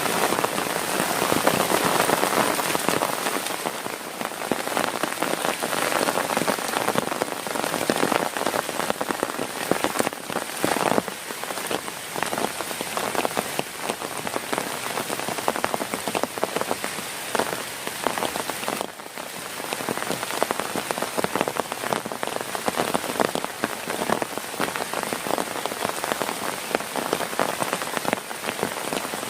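Heavy rain falling on a tent, a dense, steady patter of drops hitting the fabric.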